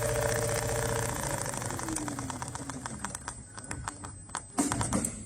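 Automatic CNC sewing machine running with a steady hum that winds down about a second in, a tone sliding down in pitch as it slows. Scattered sharp clicks follow, with a louder knock near the end.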